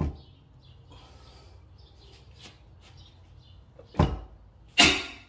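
Two loud sharp cracks about a second apart, the second the louder with a short ring: a stuck Honda crankshaft pulley bolt giving way under a breaker bar and 19 mm socket, with the pulley held by an old belt.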